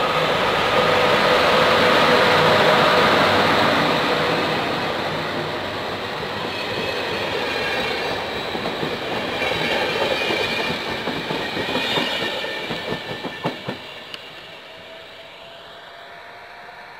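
HŽ series 1142 electric locomotive and its passenger coaches passing: steady humming tones from the locomotive over the rush of wheels on rail, then a quick clatter of wheels over a rail joint as the last coaches go by, fading as the train draws away.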